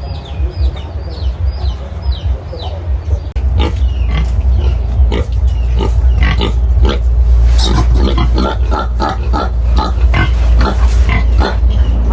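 Young piglets squealing and grunting in many short, sharp cries, over a loud low rumble that sets in suddenly about three seconds in. Quick, repeated high chirps run through the first three seconds.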